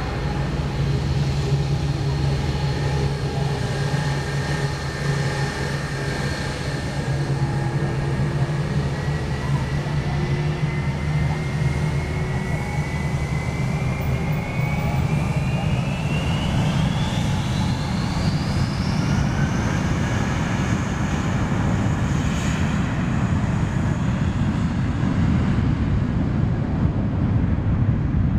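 Airbus A320's IAE V2500 turbofan engines running at low power, then spooling up for the takeoff roll: a whine rises steeply in pitch from about ten seconds in and levels off high about twenty seconds in, with a broad jet roar building underneath.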